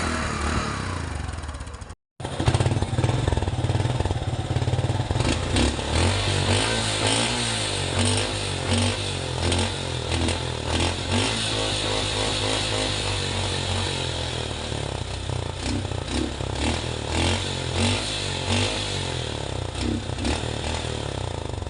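An engine running with repeated revs. About two seconds in the sound cuts out abruptly and starts again as a second recording of an engine being revved over and over.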